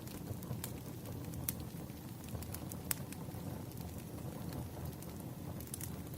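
Wood fire crackling: a steady low rumble of burning logs with a few sharp, irregular pops.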